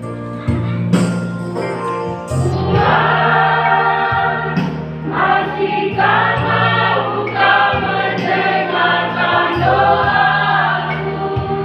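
Church choir singing a praise song in harmony, with sustained low accompanying notes that shift every second or two.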